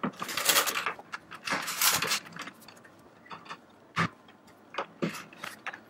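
Plastic UPS casing being handled and pressed closed by hand: two scraping rustles in the first two seconds, then three short sharp clicks near the end.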